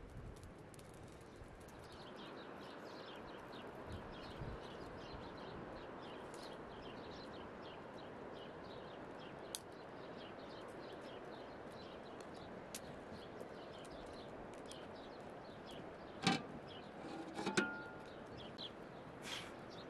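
Outdoor ambience: a steady background hiss with many small high bird chirps, and two sharp knocks near the end, the second followed by a brief squeak.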